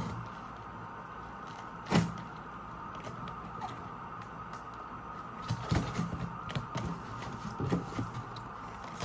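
A cardboard parcel being handled and worked open by hand: one sharp knock about two seconds in, then a run of small knocks and clicks over a steady low hum.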